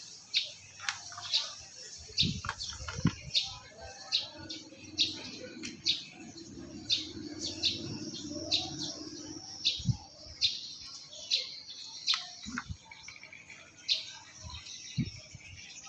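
A small bird chirping over and over, short sharp high notes about twice a second. A few dull knocks sound, and a low hum runs for several seconds in the middle.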